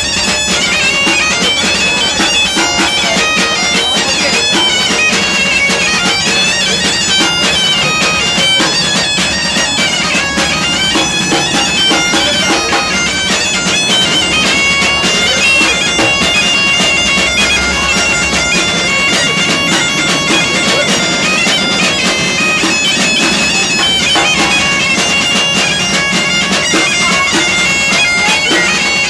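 Asturian gaita (bagpipe) playing a continuous tune, the melody moving quickly above a steady drone.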